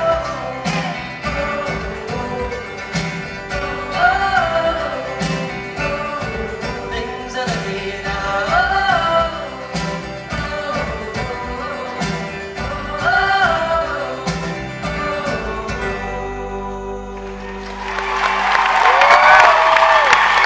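Live band with singers playing a song's closing bars, a sung phrase repeating about every four seconds over steady strummed beats. The music ends about sixteen seconds in, and the audience breaks into applause and cheering, with a whoop near the end.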